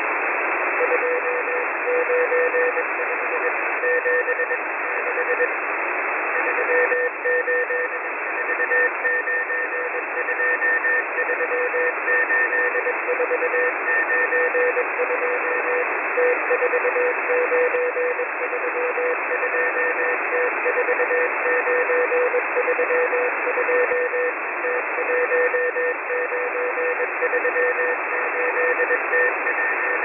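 Shortwave Morse code from the M01 numbers station, a tone keyed on and off in dots and dashes over a bed of radio static, received on upper sideband through a narrow 2.4 kHz receiver filter. A fainter, higher-pitched keyed tone comes and goes alongside.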